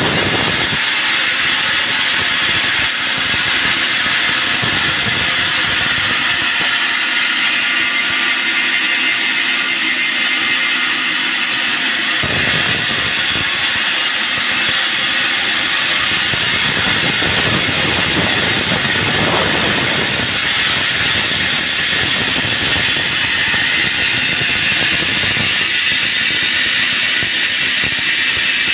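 Band sawmill running and sawing through a log: a loud, steady high-pitched hiss and whine from the blade, with a lower rumble that drops away for a while and returns about a third of the way in.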